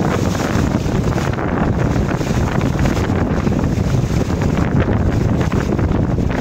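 Steady wind buffeting the microphone over water splashing and hissing along the hull of a 1970s American Mariner 23 sailboat moving under way.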